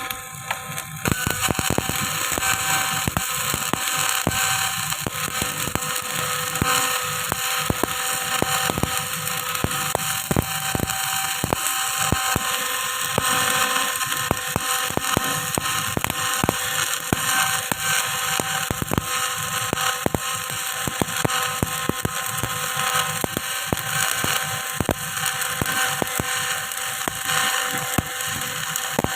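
Electric arc welding on a steel pile splice: the arc strikes about a second in and then crackles steadily and densely, over a faint steady hum.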